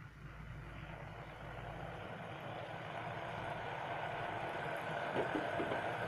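Melted butter sizzling in a heavy-bottomed steel pan over a gas burner, the hiss building up over the first couple of seconds, with a few light taps near the end.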